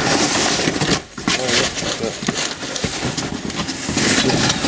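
Rustling and knocking of trash being rummaged through inside a dumpster, with many short knocks and clicks.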